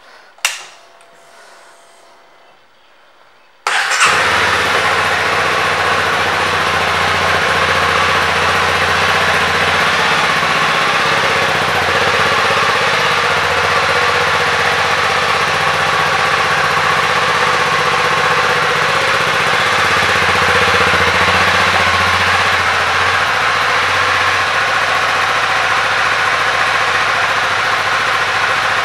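2019 Honda CB300R's single-cylinder engine: after a click near the start, it starts suddenly about four seconds in and then idles steadily.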